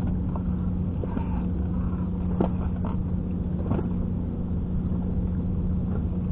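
Boat engine idling with a steady low hum. Two short clicks come through about two and a half and nearly four seconds in.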